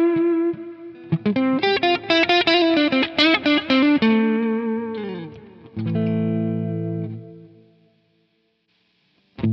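Overdriven electric guitar played through a Quad Cortex capture of a Marshall Super Bass 100 amp. Quick single-note lead lines end in a note bent down, then a chord rings and fades to silence about eight seconds in, and a new chord is struck just at the end.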